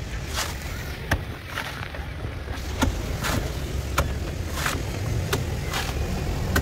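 Steel cleaver chopping into the husk and shell of a young orange coconut, a dozen or so sharp strikes about two a second, cutting wedges from the top to open it. A steady low rumble runs underneath.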